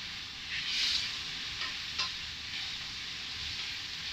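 Chicken and sausage pieces sizzling in a stainless steel frying pan while a wooden spatula stirs and scrapes through them. The sizzle surges louder just under a second in, with a few short scrapes of the spatula after it.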